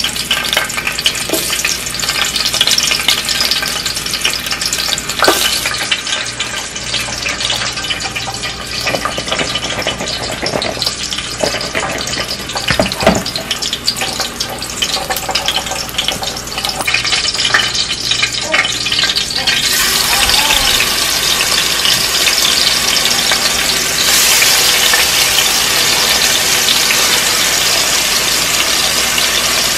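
Garlic and white onion sizzling in hot oil in a stainless steel pot, with a few sharp clicks. About two-thirds of the way through the sizzle gets louder and brighter as seasoned chicken breast pieces go into the oil.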